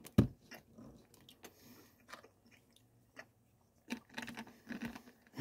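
Mouth sounds while tasting a sip of drink: faint lip smacks and tongue clicks, busier near the end, with one loud thump just after the start.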